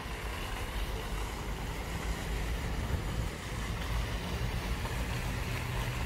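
Steady outdoor noise: wind rumbling on the phone's microphone over the constant splashing hiss of a pond's jet fountain.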